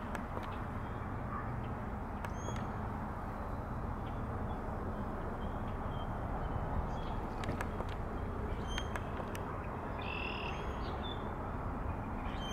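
Outdoor pond ambience: a steady low rumble, with faint short bird calls scattered through and a harsher bird call about ten seconds in.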